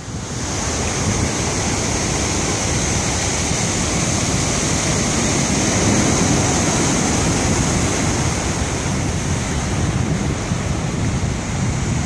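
Heavy storm surf, waves about 12 feet, breaking and washing up over the rocks at the foot of a seawall: a steady rush of water noise, a little louder midway. Wind buffets the microphone.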